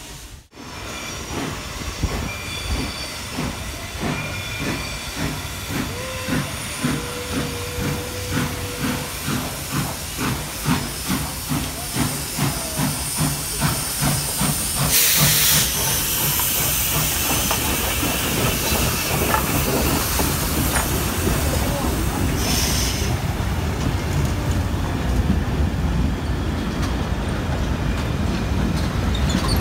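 Steam locomotive pulling away, its exhaust beats quickening from about two a second to nearly three as it gathers speed. A loud burst of steam hiss comes about halfway through, and a shorter one later, then the train rolls past with steady rail noise.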